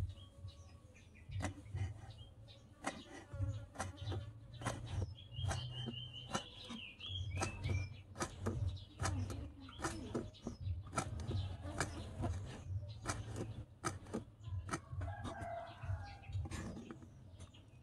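A small knife slices a crisp green winged bean on a wooden chopping board: a run of irregular sharp chops as the blade cuts through the pod and taps the board.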